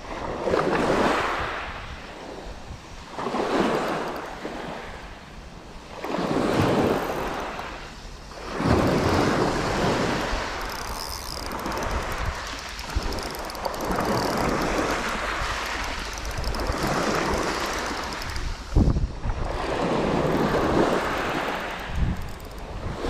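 Small waves washing onto the shore in repeated swells a few seconds apart, with wind buffeting the microphone.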